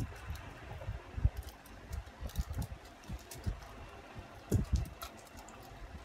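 Eating and food-handling noises: irregular small clicks and soft low knocks, like utensils, containers and food being handled on a table, with the strongest knocks about a second in and again past the middle.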